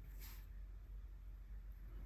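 A single brief, soft stroke across paper about a quarter-second in, over a faint steady low hum.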